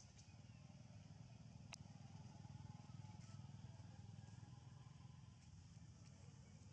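Near silence: a faint, steady low rumble of outdoor background, with one sharp click about two seconds in.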